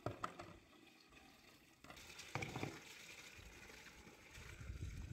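Water from a garden hose running and splashing into an aluminium pot and a plastic basin, with a couple of sharp knocks at the start as the basin is set down.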